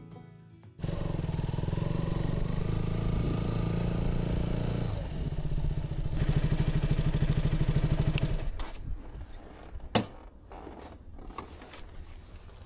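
Motorcycle engine running while riding, its pitch changing about five seconds in. The engine sound drops away about two-thirds through, and a single sharp knock follows.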